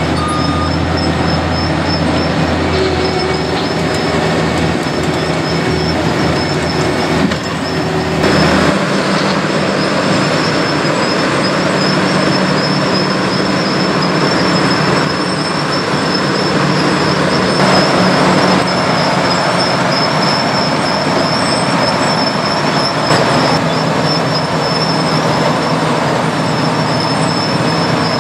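A skid steer loader's engine runs for about eight seconds. Then the sound switches to a Wirtgen cold milling machine's engine and cutting drum grinding up old asphalt, a loud, steady mechanical din.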